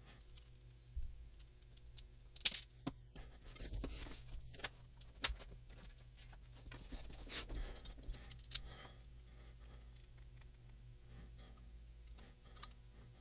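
Small metallic clicks and clinks as the Abus EC660 dimple lock cylinder is taken apart, its small parts and tools knocking together. The clicks are scattered and irregular, thinning out after about nine seconds.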